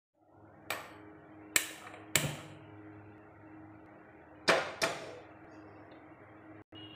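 Five sharp metallic clicks and knocks, three spread over the first couple of seconds and a close pair about four and a half seconds in, as a steel kadai is set on a gas stove's burner grate. A faint steady hum runs underneath.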